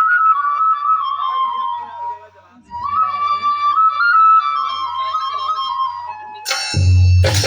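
A flute playing a slow, gliding devotional melody over a low steady drone, with a brief pause for breath a little past two seconds in. Near the end a loud percussive strike cuts in.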